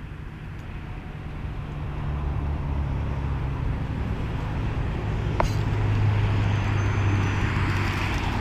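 A motor vehicle's engine running, a low steady hum that grows louder through the first half and then holds, with one sharp click a little past halfway.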